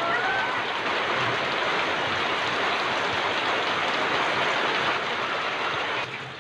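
Heavy rain pouring steadily as an even, dense hiss, easing off slightly near the end.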